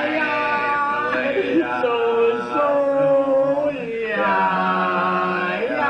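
Male singing of a slow song in long held notes, phrase by phrase, with short breaks between the phrases.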